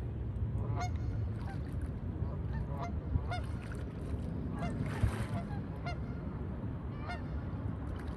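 Geese honking repeatedly, short calls coming one to two a second, over a steady low rumble.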